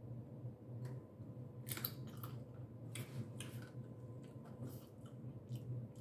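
Cooked blue crab shells being cracked and pulled apart by hand while eating: a scattered series of sharp, crunchy snaps and crackles.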